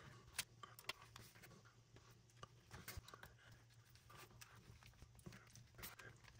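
Faint, scattered small clicks and ticks of a precision screwdriver driving small screws into a plastic speaker housing, with hands handling the plastic body.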